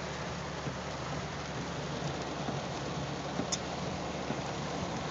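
Heavy rain falling on a car's roof and windows, heard from inside the car, a steady hiss with a low hum underneath. One brief click about three and a half seconds in.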